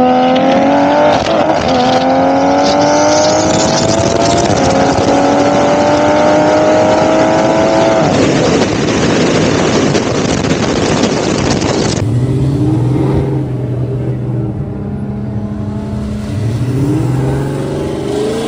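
A street car accelerating hard through the gears: the engine note climbs, drops back at each of three upshifts, and climbs again, with longer pulls in the higher gears, then gives way to a loud rushing noise. After a cut about twelve seconds in, a car engine runs at a lower, steadier pitch, with a couple of short rev blips.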